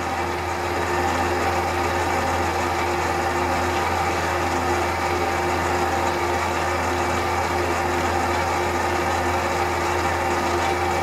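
Electric stand mixer running steadily at one speed, its motor humming as the attachment kneads flour into a soft, sticky dough in the steel bowl. It gets a little louder about a second in.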